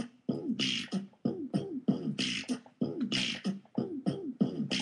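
Girls' voices making rhythmic mouth sounds in a beatbox style: short sliding hums and vocal notes broken by sharp hissing "tss" bursts, imitating the song's instrumental break.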